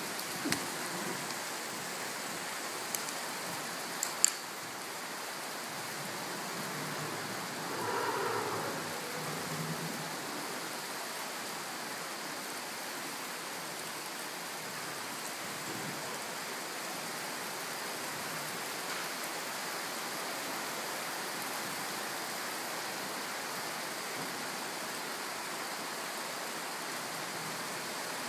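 A steady hiss with a rain-like sound, with a few sharp clicks in the first four seconds and a brief louder sound about eight seconds in.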